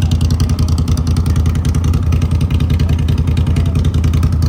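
ATV engine running steadily under way on a dirt trail, its low, rapid firing pulses holding even.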